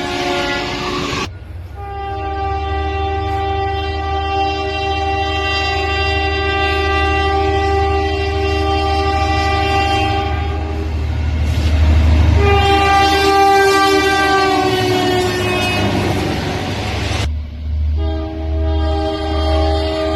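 Locomotive air horns sounding long multi-note chords as trains pass, over the low rumble of the trains, in several clips cut together. The horn partway through drops slightly in pitch as the train goes by (the Doppler effect).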